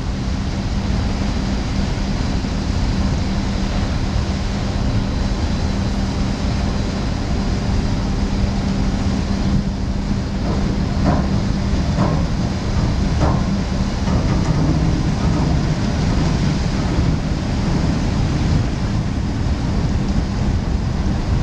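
Marine diesel engines of a departing cargo ship and its assisting tugboat droning steadily, with a low hum over a wash of machinery and water noise. A few short knocks come about halfway through.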